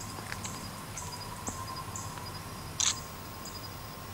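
Night insects chirping: short high chirps in an even rhythm of about two a second over a steady high-pitched drone. One sharp click sounds about three seconds in.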